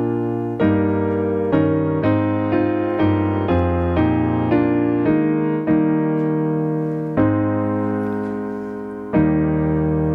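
Piano playing slow hymn chords for the offertory, each chord struck and left to ring, with two longer held chords in the second half.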